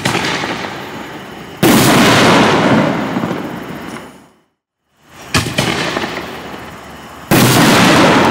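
Two 5-inch Neon Diablo canister shells fired one after the other. Each leaves its mortar tube with a sharp report, then bursts about two seconds later with a louder boom that fades over a couple of seconds.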